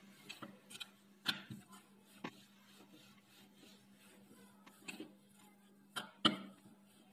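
Rolling pin rolling out samosa dough on a floured wooden chopping board: soft rubbing strokes with several sharp knocks of the pin against the board, the loudest pair just after six seconds in.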